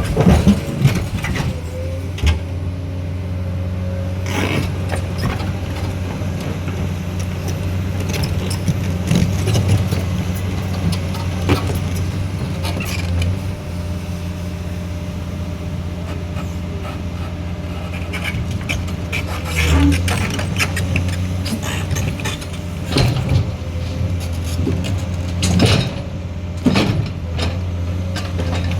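A heavy machine's engine running at a steady deep drone, with scattered metallic clanks and knocks over it.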